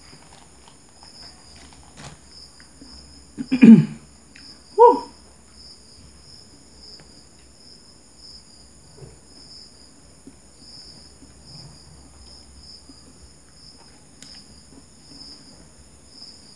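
Crickets chirping steadily in a fast pulsing high trill. Soft eating and wrapper-handling noises sit under it. About three and a half seconds in, the man eating makes two short, loud vocal sounds a second apart, the first one longer.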